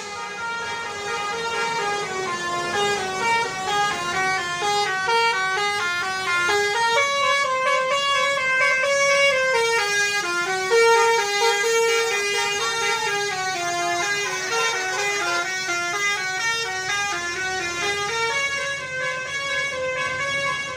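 Tour bus's basuri musical air horn playing a tune: a melody of short, stepped notes, one after another without a break.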